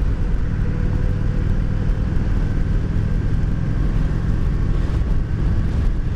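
Kawasaki Vulcan 900 V-twin motorcycle running at a steady cruising speed, its engine rumble mixed with wind rushing over the handlebar microphone.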